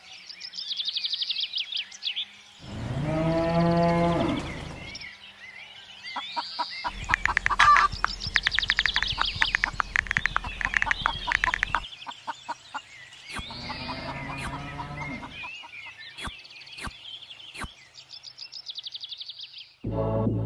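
Cow mooing twice: one long, low moo about three seconds in and a shorter one past the middle. Around the moos run stretches of rapid clicking and chirping, with a few sharp single clicks near the end.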